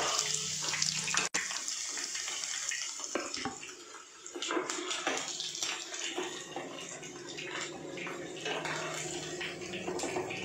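Hot oil sizzling and crackling in a nonstick kadhai as shallow-fried baby potatoes are scooped out with a perforated wooden spoon, with irregular taps and scrapes of the spoon against the pan.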